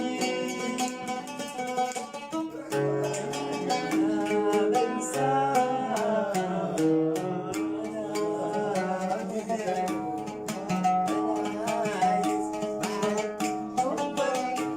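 Instrumental music: a plucked-string melody over a steady beat of percussion strokes.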